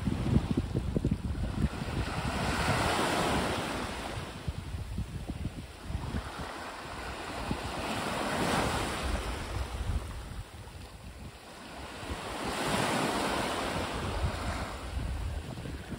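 Small waves breaking and washing up a pebble-and-sand beach; the hiss of the surf swells and fades every few seconds. Wind buffets the microphone with a low rumble throughout.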